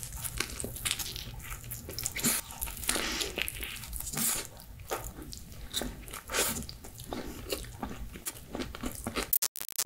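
Close-up eating sounds of a person biting into a slice of pizza and chewing: the crisp crust crunches and crackles in quick repeated bites. The crunching cuts off suddenly near the end.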